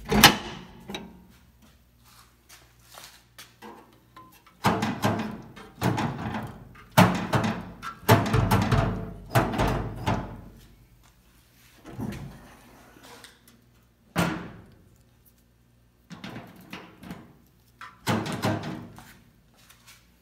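Steel tool-cart drawers being slid open and pushed shut several times, each stroke a sliding rumble that ends in a metallic clunk. A sharp click right at the start comes from the drawer-lock lever being flipped.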